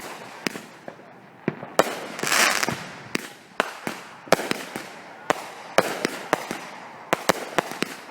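Consumer firework cakes firing together, two Hardcore cakes and a Cutting Edge Power Zone 200-gram salute cake: an irregular string of about a dozen sharp bangs, with a rushing hiss swelling up a little after two seconds in.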